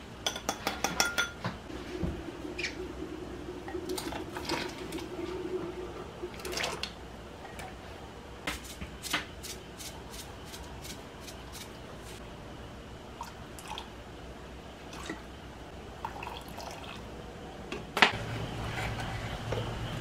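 Kitchen clatter: scattered light clinks and knocks of dishes and utensils, with water dripping. A quick run of clinks comes in the first second and a sharper knock near the end.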